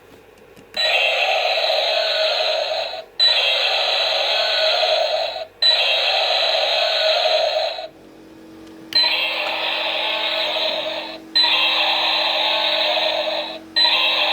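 Toy Tyrannosaurus figure's built-in sound unit playing its electronic sound effect: a harsh noisy call about two seconds long, repeated six times with short gaps and one longer pause. A steady low hum sets in about halfway through.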